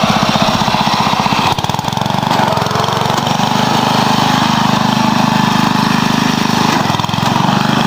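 Dynamark riding lawn tractor's engine running while it is driven. The note shifts about a second and a half in, then holds steady.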